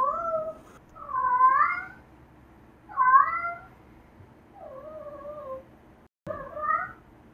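Domestic cat meowing repeatedly: about five separate meows, each rising and falling in pitch, the fourth softer and drawn out.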